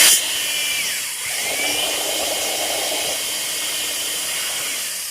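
Handheld power drill running while it bores holes for an engine mount. It eases off just after the start, slows about a second in and speeds back up, then runs on steadily.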